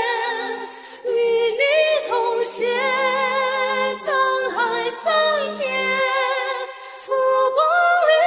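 A male singer with a high, clear voice singing a slow ballad, holding long wavering notes in phrases with short breaths between them.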